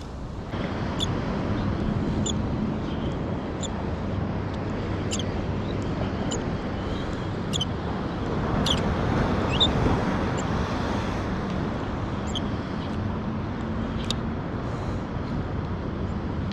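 Steady rushing noise of a kayak moving through water, with a faint low hum underneath and scattered sharp light clicks.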